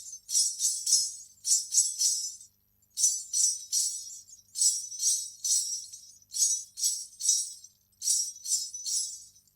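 Ghunghroo (salangai) ankle bells, strings of small metal bells, shaken in short jingling bursts: about six groups of three quick jingles, each group followed by a brief pause.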